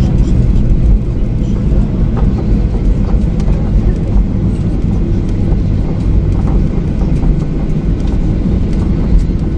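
Boeing 737-800 heard from inside the cabin during its landing roll: a loud, steady, low rumble from the wheels and engines, with faint rattles and ticks over it.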